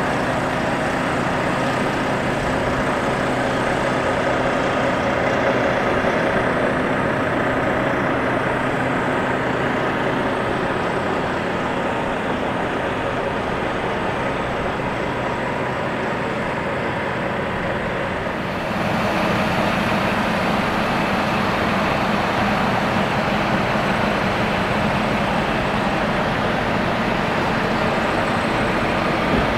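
1997 Ford Mustang GT convertible with its power soft top folding down while the car stands running, giving a steady mechanical hum. About two-thirds of the way through the sound changes and grows brighter and slightly louder.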